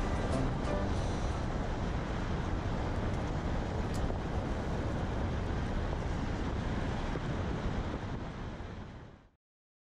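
Steady rushing noise, strongest in the low end, with the tail of music dying away in the first second; the noise fades out and stops about nine seconds in.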